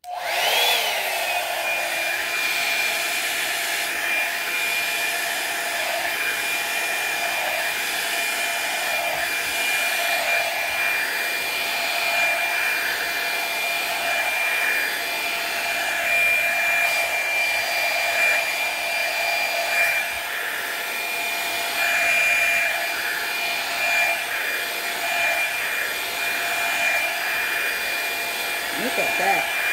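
Revlon One-Step hair dryer brush switched on and running, a steady high whine over rushing air. The whine dips in pitch and settles in the first second as the motor comes up to speed, then holds steady while the brush is drawn through the hair.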